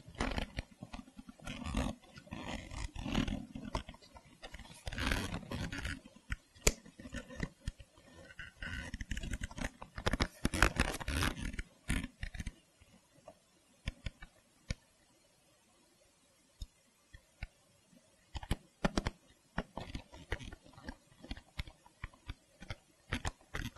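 Irregular scraping and rustling as a leather-covered seat cushion is handled and a screw is worked into its plastic power-seat switch trim. It goes nearly quiet a little after halfway, then scattered clicks and taps follow near the end.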